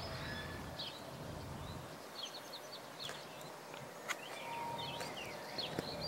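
Wild songbirds chirping and singing in short, quick phrases of high notes, with a low rumble in the first couple of seconds.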